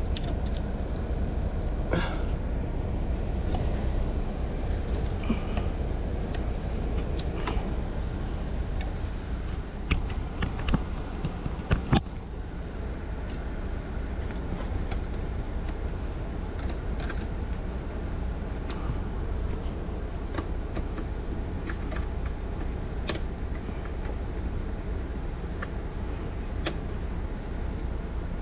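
Scattered sharp clicks and taps of plastic clips and trim being pulled loose and handled by hand around a car's sunroof frame, a cluster of them about ten to twelve seconds in, over a steady low rumble.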